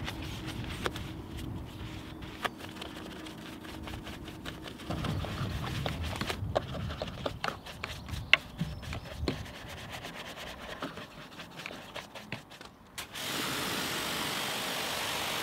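Detailing brush scrubbing soapy door shuts and a fuel filler recess: rubbing and scratching with small clicks. About thirteen seconds in, a pressure washer starts, a steady hiss of spray rinsing the sill.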